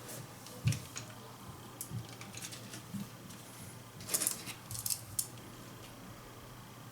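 Irregular small plastic clicks and taps as a TV remote control is handled and its parts are pressed back into place, with a quick cluster of clicks about four seconds in.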